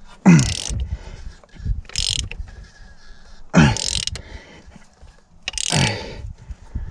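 Toyota 2.2 four-cylinder engine being turned over by hand with a ratchet, giving three low burp-like puffs falling in pitch, a couple of seconds apart, as cylinders come up on compression; the engine feels tight, with good compression.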